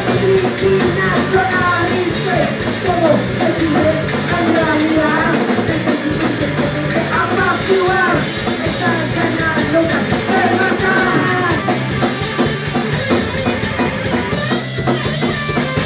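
Live punk rock band playing at full volume: a woman's lead vocal sings over electric guitar, bass guitar and a Tama drum kit.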